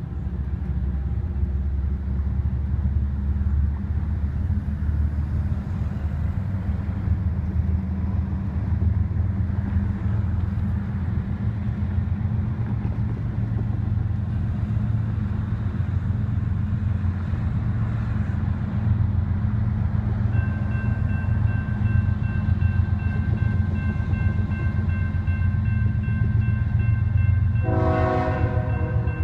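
A steady low engine rumble. About two-thirds of the way in, the crossing's electronic bells (an NEG and a General Signals Type 2) start ringing steadily, warning of an approaching train. Near the end a train horn sounds a loud blast.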